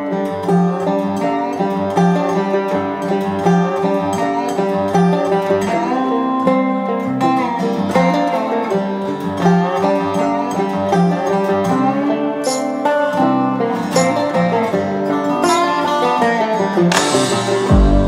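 Instrumental background music.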